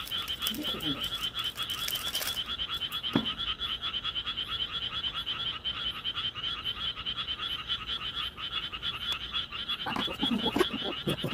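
A chorus of frogs calling in a fast, even run of pulses that goes on steadily. A short hiss comes about two seconds in.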